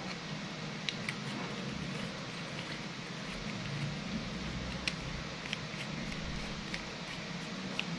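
A few faint, scattered clicks and light scraping from the threaded tail cap of an aluminium LED flashlight being screwed back on by hand, over a steady background hiss.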